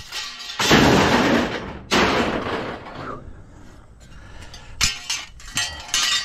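Scrap metal tossed into a trailer bed: two loud metallic clatters in the first three seconds, then a few sharp clinks of metal on metal near the end.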